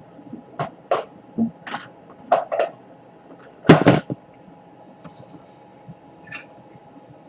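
A string of short clicks and taps from hard parts and tools being handled on a workbench, loudest a sharp double knock about three and a half seconds in, then two fainter clicks near the end.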